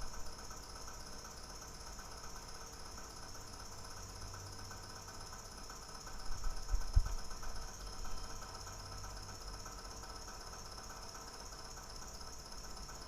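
Steady faint hum and hiss, with a few dull low bumps about six to seven seconds in and one more near eight seconds, from handling on a work surface.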